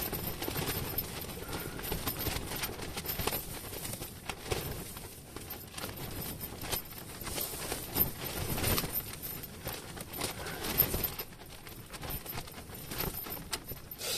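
Fabric of an ice-fishing tent flapping and rattling in a strong wind: an uneven run of flaps and knocks over a steady rush, with one sharper knock about three-quarters of the way through.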